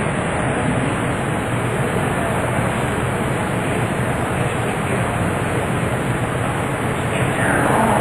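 Steady rushing background noise with no distinct events, and a short pitched sound near the end.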